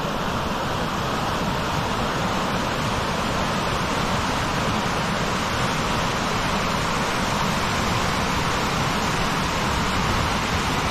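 Fast mountain creek rushing over rocks in whitewater: a loud, steady rush of water.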